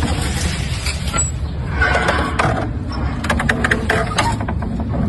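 A gate being opened: a few clicks and two short scraping creaks over a steady low rumble.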